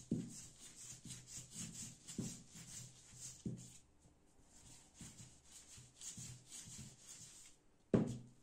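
Wooden rolling pin rolling out a ball of floured dough on a worktop: repeated rubbing strokes with a few knocks, the loudest one near the end.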